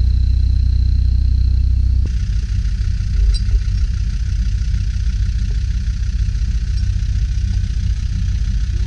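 Land Rover Discovery engine idling steadily. The sound changes abruptly about two seconds in, and a brief knock comes about a second later.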